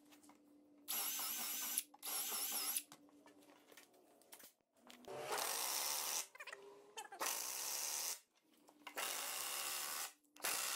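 Cordless drill pre-drilling pilot holes through steel angle brackets into wood in two short runs. From about five seconds in, a pneumatic impact wrench drives lag screws in four bursts of about a second each.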